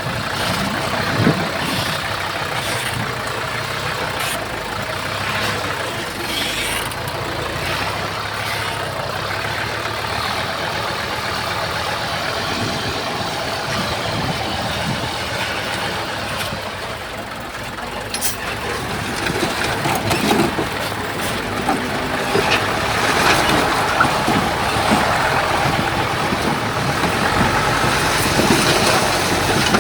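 Diesel engines of heavy earthmoving machinery running steadily, growing louder about two-thirds of the way through, with a few short knocks.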